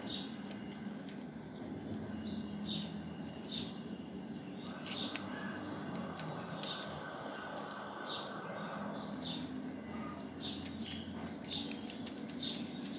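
Small birds chirping outdoors: short, high chirps repeating about once a second, over a steady low background hum.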